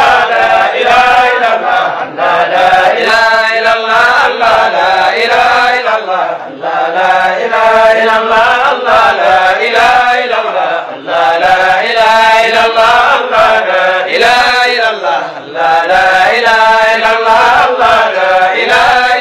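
Male voice chanting a Sufi zikr in a repeating melodic phrase, with short pauses about every four to five seconds.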